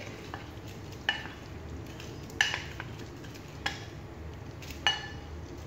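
Wooden spatula knocking against a ceramic bowl and pan as raw shrimp are scraped out into melted butter: five short clinks, about one every second or so.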